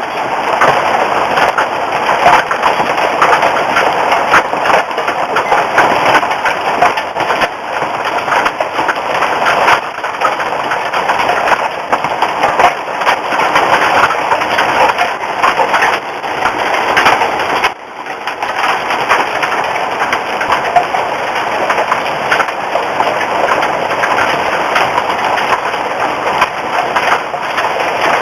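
Hailstones and heavy rain pelting down in a dense, steady clatter of many small hits.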